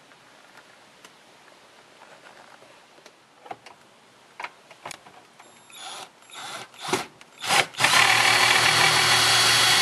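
Cordless drill/driver removing a Phillips screw that holds a car's factory radio in the dash. After a few faint clicks it gives several short blips, then runs steadily for about two seconds near the end.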